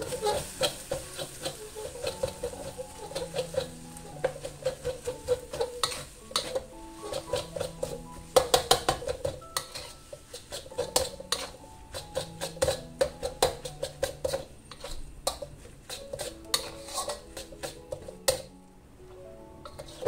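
Metal spatula scraping and clanking against a wok as fried instant noodles are stirred and tossed: rapid, irregular clanks and scrapes that stop about 18 seconds in. Background music plays underneath.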